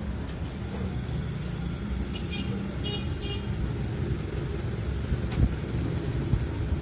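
Motor vehicle engine running with a steady low rumble. A few short, high-pitched toots come about two and a half to three seconds in.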